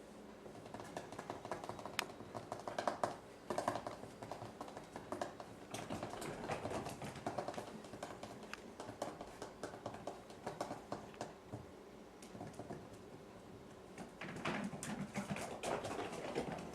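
Kittens scampering about, their paws making a long run of light, quick, irregular pattering and tapping, with a louder flurry near the end.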